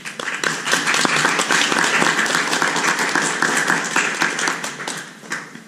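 Audience applauding: many hands clapping, starting right away, holding for about four seconds, then dying away near the end.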